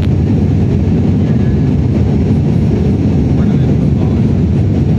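Steady drone of an airliner in flight, heard inside the passenger cabin: engine and airflow noise, deep and unbroken.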